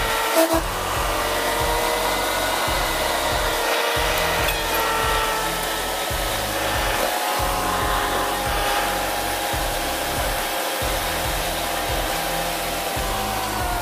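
Vehicle cabin noise at highway speed: a steady engine whine over road noise, its pitch easing slowly downward near the end.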